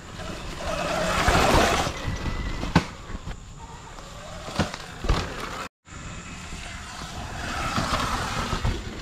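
Sur Ron X electric dirt bike passing by twice: its electric motor whine and knobby tyres on dirt swell up about a second in and again near the end. Sharp clicks and crackles from the tyres run over twigs and leaves in between.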